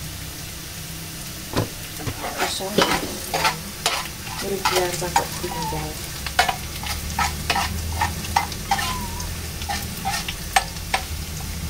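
Pieces of pindang tongkol (boiled salted tuna) sizzling in oil in a small non-stick frying pan on a gas burner. A spatula clicks and scrapes against the pan many times as the fish is stirred and turned.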